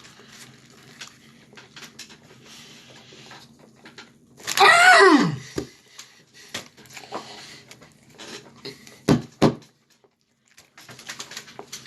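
A man eating a fried chicken sandwich, with faint mouth and wrapper noises. About four seconds in comes a loud, drawn-out wordless exclamation of delight that slides down in pitch over about a second. Later come two sharp clicks in quick succession.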